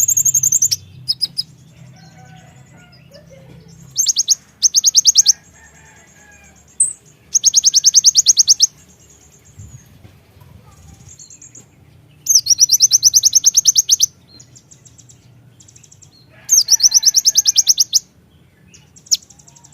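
Kolibri ninja (konin) sunbird singing: repeated bursts of very rapid, high-pitched trilling notes, each burst lasting about a second, with pauses between them.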